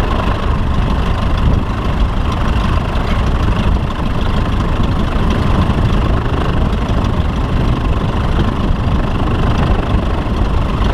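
Engine running steadily under heavy, uneven wind rumble on the microphone.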